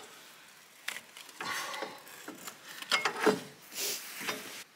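Spin-on oil filter on a Kubota diesel engine being loosened with pliers and unscrewed by hand: irregular metal clicks, scrapes and rubbing, loudest about three seconds in.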